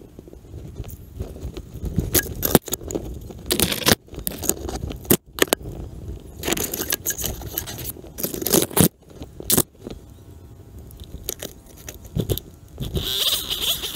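Tree climber moving among branches: irregular bursts of branches scraping and rustling close by, with climbing hardware jangling and clicking. A wavering pitched tone starts near the end.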